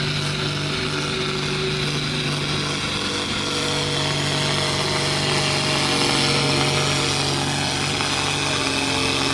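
Farm tractor engine running flat out under heavy load as it drags a weight-transfer pulling sled, a steady drone that grows a little louder midway.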